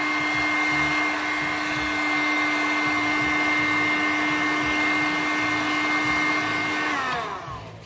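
Electric heat gun running, a steady blowing hiss with a fixed whine, drying the wet-sanded marble surface. About seven seconds in it is switched off, and the whine falls in pitch as the fan winds down.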